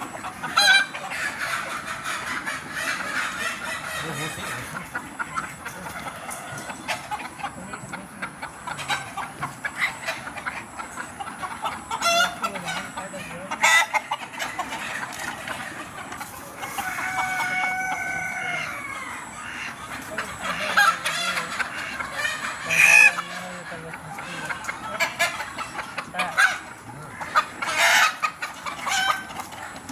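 Free-range chickens clucking and calling throughout in many short, sharp calls. A rooster crows once, a long call of about three seconds, a little past halfway.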